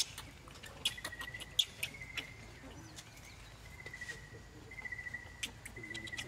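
A newborn macaque gives a few short, sharp, high squeaks in the first couple of seconds. After that a short trill at one steady high pitch repeats about once a second in the background.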